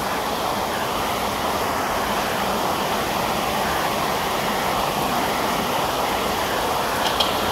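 Steady rushing noise with no voices, and one short click near the end.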